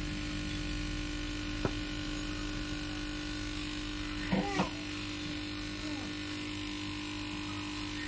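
Steady electrical hum, with one sharp click about one and a half seconds in and a short vocal sound that rises and falls in pitch a little after four seconds.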